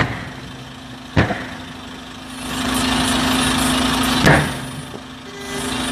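Sharp bangs at the start, about a second in and again past four seconds: gas cylinders on a burning truck exploding. Under them runs the steady hum of an idling vehicle engine.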